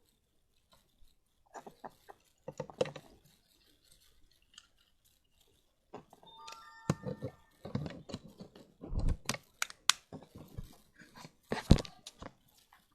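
Toy packaging and a plastic figure being handled: crinkling and tearing with scattered clicks and knocks, sparse at first and busier from about halfway.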